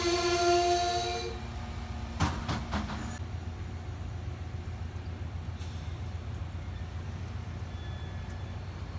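Amtrak locomotive horn sounding a held chord that cuts off just over a second in, followed by a few sharp clanks about two seconds in and then a steady low rumble.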